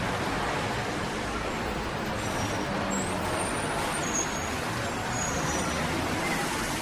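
City street ambience: a steady wash of road traffic noise from passing vehicles. A few faint, short, high-pitched tones come and go in the middle.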